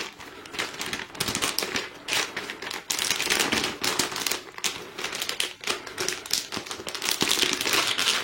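An Apple aluminium keyboard being unwrapped and lifted out of its packaging: irregular rustling and crinkling of the wrapping with many small clicks and taps.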